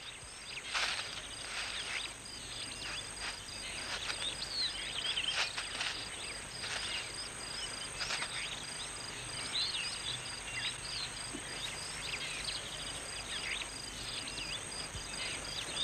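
Bush ambience of insects and birds: a steady high insect whine and a rapidly pulsing insect trill, with many short bird chirps scattered throughout.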